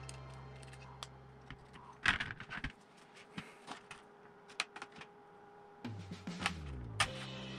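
Background music fades out. Then come a few seconds of sharp clicks and clatter of small metal parts and a hand tool on a plastic parts tray, busiest about two seconds in. The music comes back about six seconds in.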